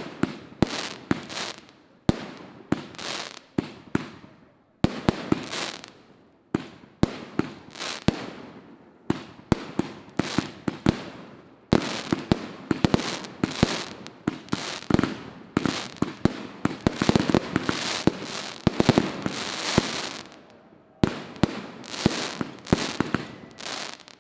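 Fireworks display: a rapid series of aerial shell bursts, sharp bangs each dying away, coming thickest in the middle and easing briefly about twenty seconds in.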